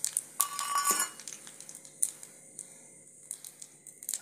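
Metal ladle clinking and scraping against a karahi while whole spices fry in hot oil, with scattered crackles. A brief ringing scrape comes about half a second in.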